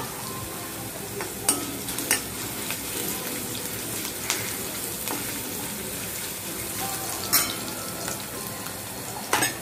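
Chopped garlic and green chillies sizzling in hot oil in a kadhai, stirred with a steel ladle. The ladle clinks sharply against the pan a few times.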